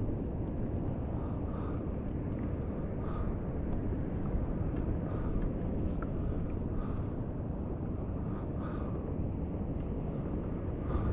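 Steady low rumble of wind and choppy water around a plastic fishing kayak, with small waves slapping the hull about every one and a half to two seconds.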